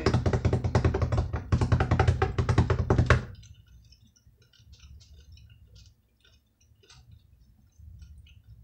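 A loud drum roll of rapid strokes lasting about three seconds, with a brief dip partway, that stops suddenly. Faint scattered clicks of chewing follow.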